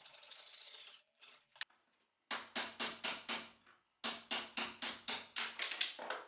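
Rapid hammer blows on the steel axe head held in a bench vise, about four strikes a second in two runs, each with a short ring, knocking out the cracked wooden handle. A brief rasping sound comes first.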